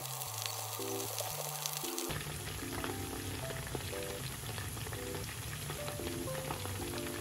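Starch-battered pork pieces deep-frying in hot oil for tangsuyuk, a steady crackling sizzle. Background music plays over it.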